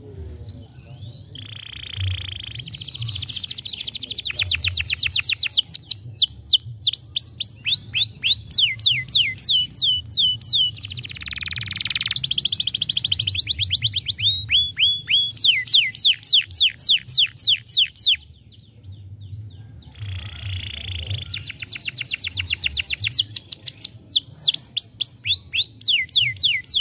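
Domestic canary singing: long, fast trills of repeated downward-sweeping whistled notes, broken by a few rougher, noisier notes and a short pause in the middle, over a faint low hum.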